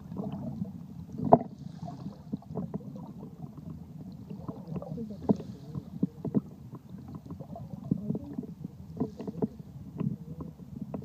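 Muffled underwater sound picked up by a phone microphone inside a waterproof case: a steady low rumble of moving water, with scattered irregular knocks and taps, the loudest about a second in.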